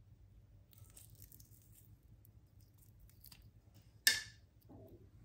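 Faint squishing and tearing of soft, water-soaked dried apricots as fingers split them open to pull out the stones, with one sharp click about four seconds in.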